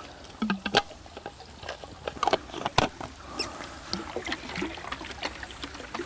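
Scattered light clicks and taps of a plastic water bottle and purifier pen being handled, irregular and a few each second.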